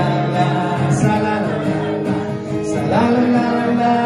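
A man singing a Christmas carol to strummed acoustic guitar.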